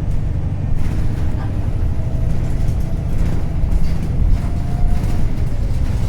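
Wright Pulsar 2 single-decker bus with its Cummins ISB diesel engine running, a steady low drone. A faint whine shifts in pitch, and there are a few light knocks.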